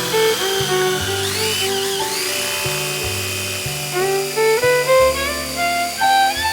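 Background music: a melody of held notes stepping up and down over a bass line. About a second and a half in, a short high whine rises and falls.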